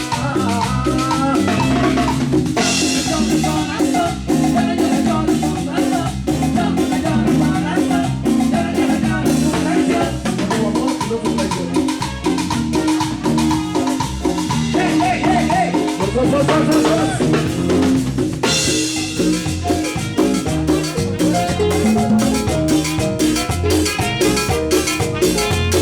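Live Latin band playing an instrumental passage between sung verses, with a steady drum-kit beat under sustained melodic lines.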